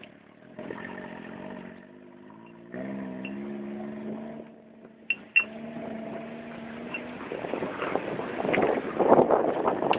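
Off-road vehicle engine running and revving, its pitch shifting up and down, with two sharp knocks about five seconds in and a louder, rougher rush of noise over the last few seconds.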